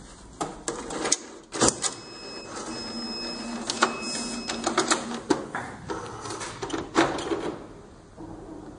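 Clicks and knocks at the HIFU treatment console's control panel as its main power is switched on. A steady high electronic tone sounds from about two seconds in, breaks briefly, and stops just before five seconds.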